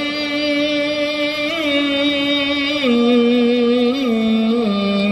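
A man's voice chanting the azan (Islamic call to prayer), drawing one vowel out in long held notes that step down in pitch about three seconds in and again near the end, with small ornamental wavers between.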